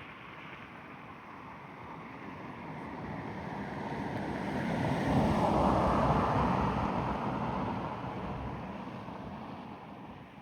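A vehicle passing by: its noise swells to a peak about halfway through, then fades away.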